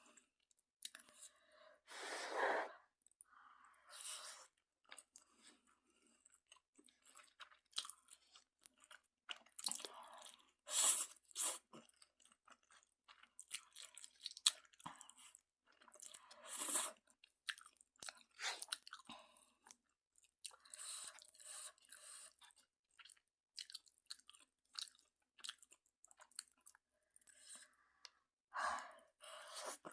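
A person eating Jjapagetti noodles made with Buldak sauce, close to the microphone: chewing and mouth noises that come in irregular bursts, a few of them longer.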